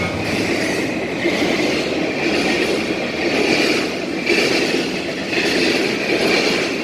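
Amtrak passenger train rolling past close by: a steady rush of wheels on rail with a high metallic ring that rises and fades.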